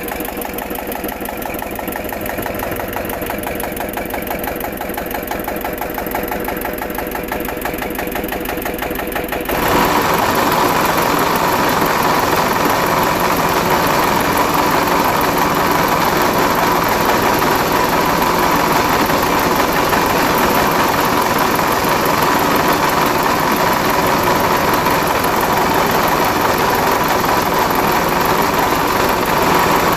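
Small electric motor of a homemade mini flour-grinding machine running with a rapid, even rattle. About ten seconds in it turns louder and rougher, with a steady high whine, and keeps running that way.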